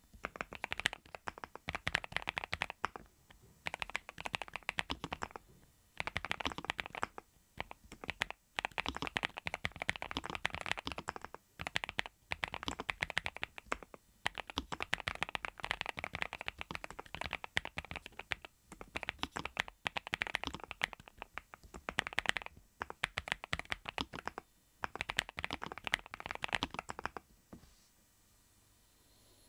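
NuPhy Halo75 V2 mechanical keyboard with Raspberry switches being typed on in quick bursts of keystrokes separated by brief pauses, a soft, pleasant 'kotokoto' clacking. The typing stops near the end.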